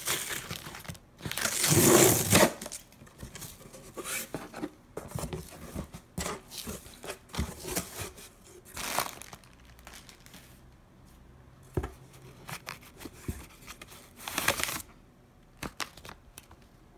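Packing tape being ripped off a cardboard box, loudest in one long rip about two seconds in, followed by shorter rips and the rustle of cardboard flaps and plastic wrap as the box is opened.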